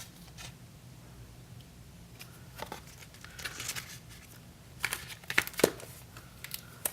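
Paper rustling and a few light clicks and taps as a pocket memo book is handled.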